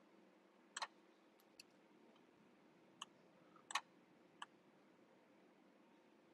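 A handful of short, sharp computer mouse clicks, about five spread over the first four and a half seconds, against near silence.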